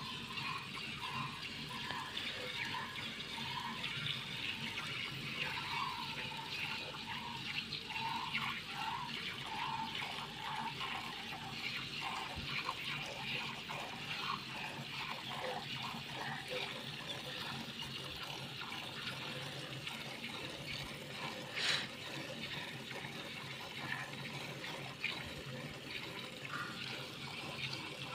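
Milk squirting from hand-pulled teats into a steel pail: a continuous hiss of liquid streams hitting the milk, with one sharp click about three-quarters of the way through.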